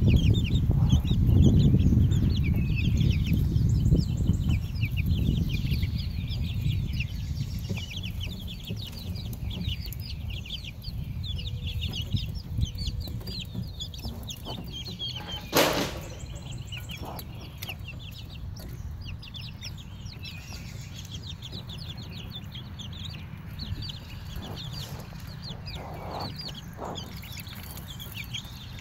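Baby silkie chicks and call ducklings peeping constantly, many rapid high peeps overlapping. A low rumbling noise sits under the first several seconds, and one sharp noise stands out about halfway through.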